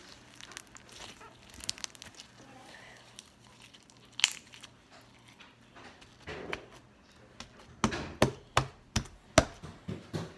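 Slime mixed with foam beads being squeezed and kneaded by hand: scattered small clicks and crackles, then from about eight seconds in a run of sharp pops, about two or three a second.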